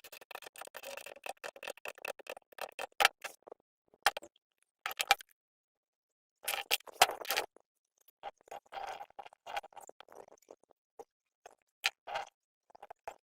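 Tools and small metal parts being handled during engine work: irregular clicks, clinks and short scrapes, with quiet gaps of about a second between the bursts.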